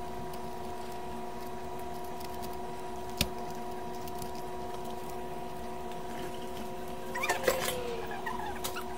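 A steady hum of a few fixed tones, with one sharp click about three seconds in. Near the end comes a cluster of clicks, rustles and a short faint squeak as hands handle the QSC TouchMix 16 mixer's panel.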